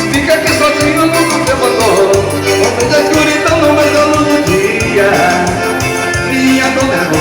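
Live dance band playing an instrumental passage of Brazilian dance music: a repeating bass line and steady percussion under a melody line.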